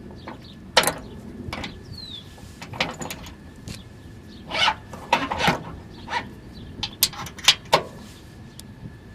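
A series of sharp knocks and clicks at irregular intervals, the loudest about a second in and near the end, over a faint steady high tone.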